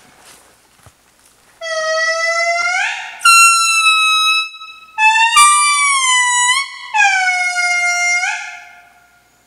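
Indri lemur song: a series of long, loud, pitched calls beginning about a second and a half in, each note holding its pitch and then sliding upward at its end. Two voices overlap in the middle, and the last note fades out near the end.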